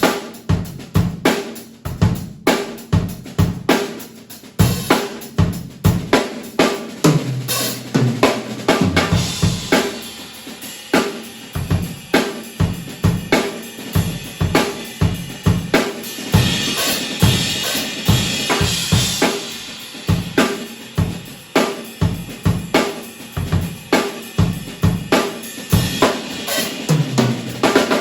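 Acoustic drum kit played solo: a dense run of kick and snare strokes with hi-hat, a low tom ringing about eight seconds in and again near the end, and a stretch of washing cymbals around the middle.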